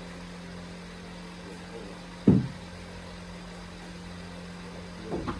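A steady low hum, with one heavy knock about two seconds in and a lighter knock near the end.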